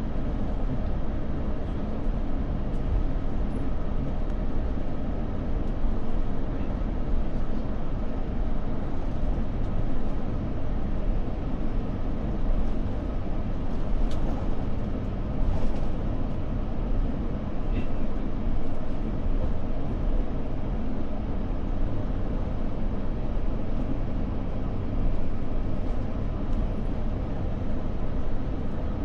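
Steady cabin noise inside a jet airliner: the even low rumble of the engines and airflow, with no change in pitch or loudness.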